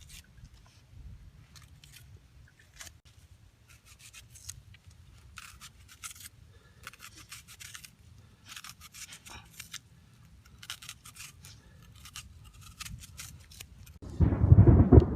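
Knife slicing through onion, short scratchy cutting strokes coming irregularly in quick clusters. Near the end a loud low rumble comes in.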